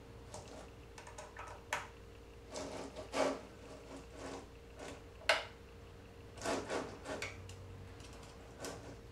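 Hand tool and small screws clicking and knocking against a metal carriage plate while parts are fastened, with a sharp click about five seconds in.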